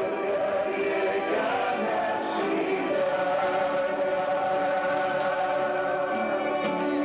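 Several voices singing a song together, with a long held note from about three seconds in to about six seconds in.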